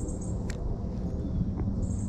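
Riverside outdoor ambience: a steady low rumble, with a small bird giving quick runs of about four very high chirps at the start and again near the end, and a single sharp click about half a second in.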